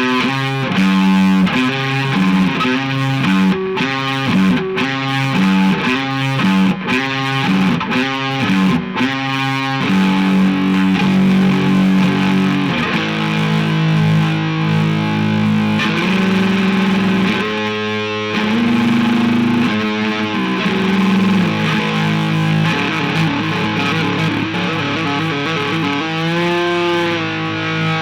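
Distorted electric guitar practice: short, choppy chords in a steady rhythm, then longer held chords and single notes from about ten seconds in, with a bent, wavering note near the end.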